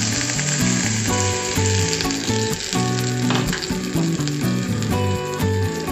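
A little water sizzles and bubbles in a hot pan of pointed gourd peels, the hiss strongest just after it is poured in. Background music plays with it.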